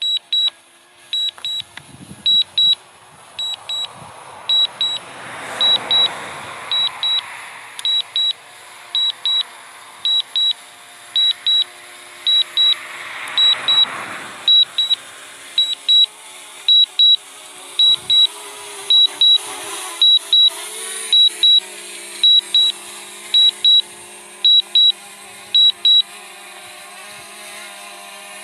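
Paired high electronic beeps, about one pair a second, from the DJI Mavic Mini's remote controller: the alert it sounds while the drone is on return-to-home. Under the beeps a rushing noise swells twice.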